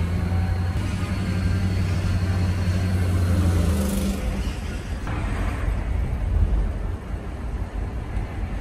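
V8 diesel engine of a Winnebago motorhome running while under way, heard from inside the cab together with road rumble. Its steady low drone drops away about four seconds in, leaving mostly road noise.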